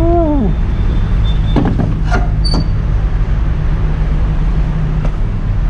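An engine idling steadily with a low hum, with a few sharp knocks and a short high beep about two seconds in.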